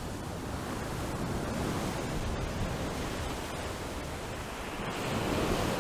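Steady rushing noise like wind or surf, with no tone or rhythm in it, swelling slightly near the end.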